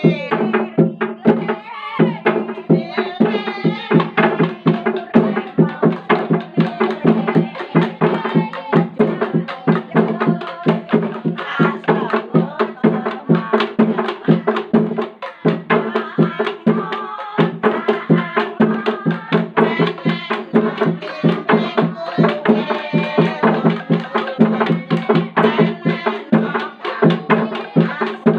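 Gejog lesung: several wooden pestles beating a hollow wooden rice trough in a fast interlocking rhythm. Dense wooden knocks run over a steady low ringing pitch, with a metal pot lid struck along with them.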